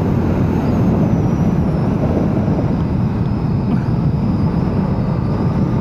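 Steady wind rush and engine note of a 2022 Yamaha R7's 689 cc parallel-twin cruising at expressway speed, with the rider tucked down behind the fairing.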